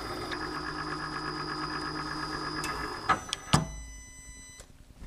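A milling machine spindle runs steadily while a countersink chamfers the edge of a drilled hole in a metal tube. A little after three seconds the machine stops, followed by two sharp metallic knocks, the second the loudest, and a brief high ringing.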